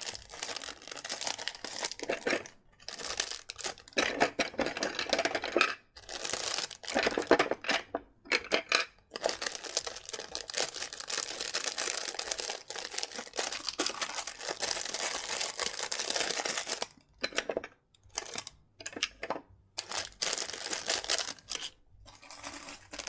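Small clear plastic bags crinkling and rustling in the hands as loose LEGO parts are bagged, in irregular bursts with short pauses.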